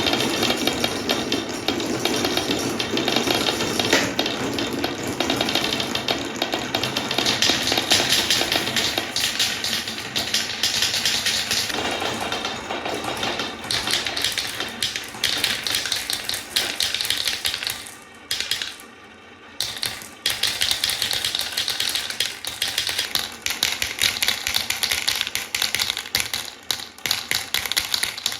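Many marbles rolling and clattering down wooden Quadrilla spiral and straight slopes, a dense, continuous rattle of clicks. It thins out briefly about two-thirds of the way through, then comes back as thick as before.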